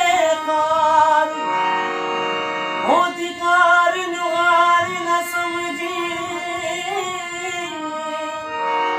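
A man sings long, drawn-out notes of a Punjabi song over sustained harmonium chords, with a dholak played underneath. The voice pauses briefly, slides up into a new note about three seconds in, and drops out near the end, leaving the harmonium alone.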